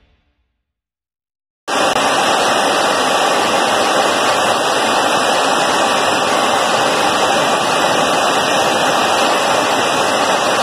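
Steady, loud rushing roar of an aircraft in flight, jet engine and airflow noise picked up aboard the camera aircraft. It starts abruptly just under two seconds in and stays even.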